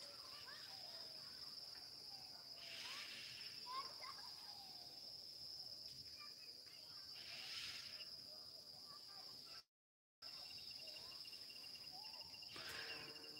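Steady high-pitched insect drone, a chorus of crickets or similar insects, with a few faint short chirps over it. The sound cuts out completely for about half a second two-thirds of the way through.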